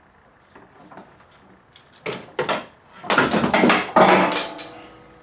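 Clattering knocks and scrapes from the oil filter housing and old filter being pulled out and handled. The knocks build over about three seconds and end with a short ring.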